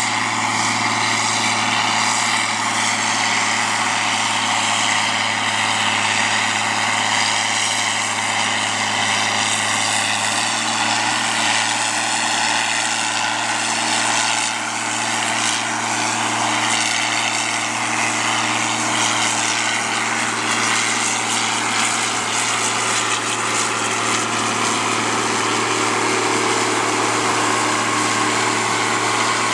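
John Deere 4650 tractor's six-cylinder diesel engine running steadily while pulling a bean planter, with a steady hum and a higher steady whine above it.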